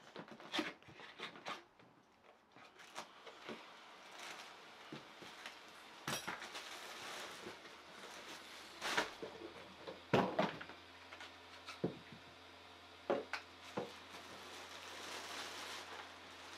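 A cardboard box being opened by hand and its folded inflatable and plastic wrapping pulled out: scattered knocks and scrapes of cardboard, with stretches of rustling packaging.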